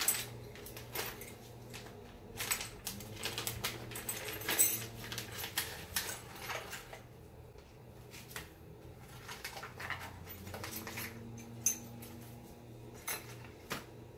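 Plastic parts bags rustling and small metal parts and tools clicking and clinking as they are handled and set down on the bench, in irregular short bursts, over a faint steady hum.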